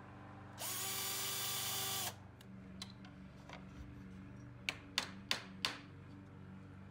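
Cordless drill runs for about a second and a half, pre-drilling a hole in a wooden birdhouse roof board. A few light taps follow, then a claw hammer strikes a nail four times in quick succession near the end.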